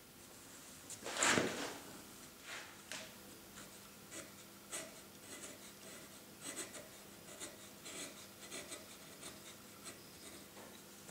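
Flat carving chisel pushed by hand, paring limewood in short, quiet, scratchy strokes, with one longer, louder cut about a second in.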